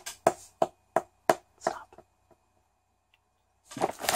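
A run of short sharp clicks, about three a second, fading out within the first two seconds. After a pause, a plastic gummy-candy bag crinkles as it is handled near the end.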